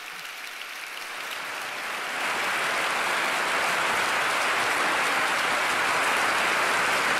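Large crowd applauding, building up about two seconds in and then holding steady.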